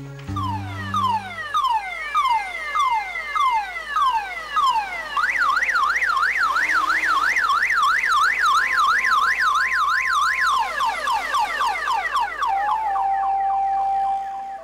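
Electronic siren: a run of quick falling wails, then a fast up-and-down warble of about three cycles a second for around five seconds, then falling wails again, with steady held tones beneath.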